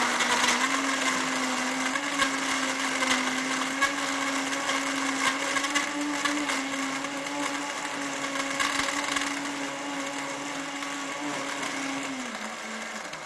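Countertop electric blender running at speed, crushing ice cubes in a chocolate smoothie mix: a steady motor hum with a crackle of ice chunks hitting the blades, the clicks thinning out as the ice breaks down. Near the end the motor winds down in pitch and stops.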